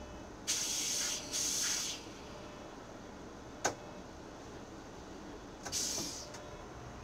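Compressed-air hisses from a city bus at a stop: two short hisses close together about half a second in, a single sharp click a little after halfway, and another hiss near the end. This is the bus's pneumatic doors and brakes working as it gets ready to pull away, over a steady low cabin rumble.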